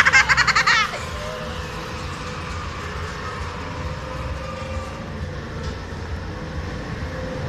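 Ghost-train car rolling along its track: a steady low rumble with a faint even hum. In the first second there is a short burst of high-pitched voices.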